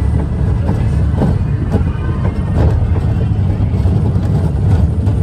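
Junior roller coaster train climbing its lift hill: a steady low rumble from the car and track with scattered clicks. Music plays over it.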